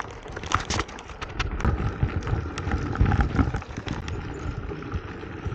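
Mountain bike tyres crunching and crackling over loose gravel and shale, with irregular small knocks and rattles from the bike and a low rumble underneath.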